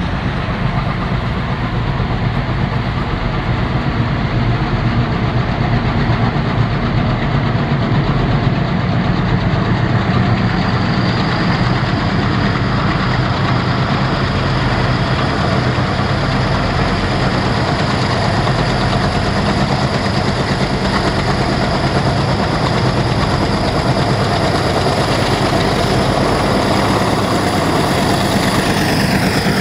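Several ALCO-type diesel locomotives working in multiple at the head of a heavy freight train, their engines chugging with a rhythmic low beat. The sound grows louder as the train approaches and sweeps past close by near the end.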